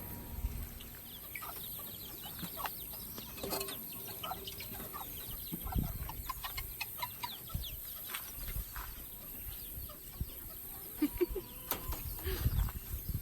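Chickens clucking intermittently, with scattered small knocks and rustles.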